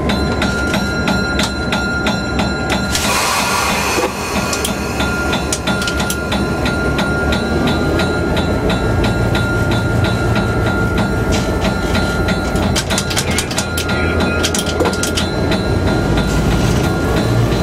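EMD F3 locomotive's 16-cylinder 567 diesel running, heard from inside the cab, with a steady drone and repeated clicks and rattles. A short hiss comes about three seconds in, and the engine note builds up around nine seconds in and again near the end.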